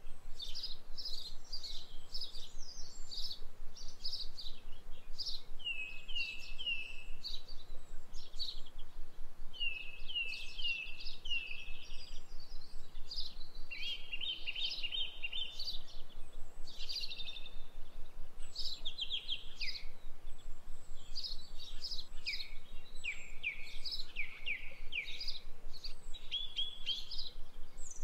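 Small songbirds chirping and twittering without pause: quick high chirps, runs of short falling notes, and a fast trill about halfway through.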